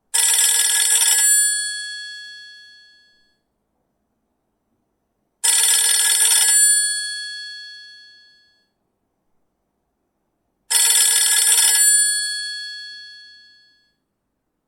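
Traditional telephone's electromechanical bell ringing three times, each ring a rattling burst of about a second that dies away over a couple of seconds, about five seconds apart.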